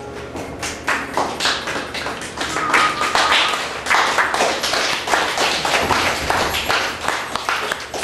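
Audience applauding at the end of a piano piece: many quick, irregular claps that swell about a second in and thin out near the end.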